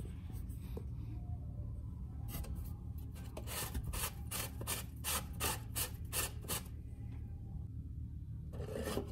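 Volkswagen Passat oil filter housing cap being unscrewed by hand: a run of short rubbing scrapes, about three or four a second, from about two seconds in to near seven seconds, over a steady low hum.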